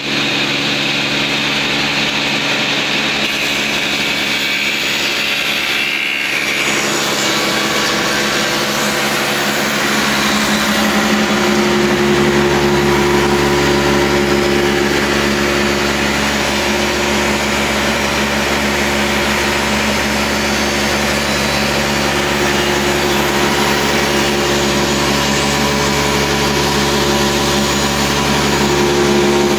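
Woodmaster planer/moulder running steadily together with its dust collector: a continuous machine hum with several steady tones under a broad hiss. About ten seconds in, a deeper hum joins and the sound grows slightly louder.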